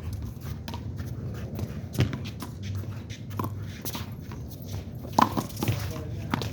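Handball play: irregular sharp slaps and smacks of the ball struck by hand and hitting the wall, the loudest a quick pair about five seconds in.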